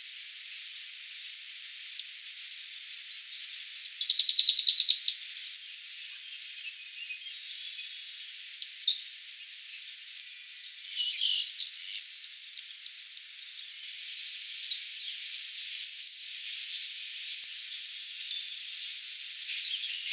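Small wild birds calling around the water: a loud, rapid high trill about four seconds in, scattered short chirps, and a run of about eight evenly spaced high notes near the middle, over a steady high hiss.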